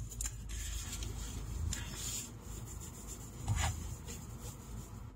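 Rubbing and rustling handling noise over a low steady rumble, with two brief louder scrapes about two seconds in and again a second and a half later.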